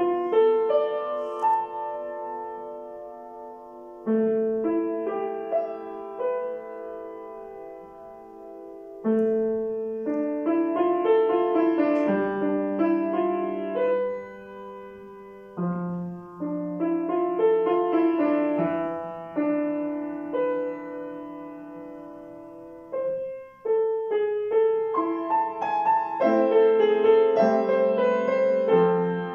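Solo grand piano playing a classical piece, with chords and melody notes left to ring. It moves in phrases that each start loud and fade over several seconds, with fresh loud entries about every five to six seconds.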